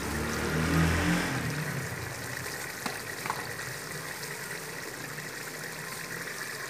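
Onion and spice masala frying in oil in an aluminium pot, a steady sizzle, with a louder low rumble during the first second or so.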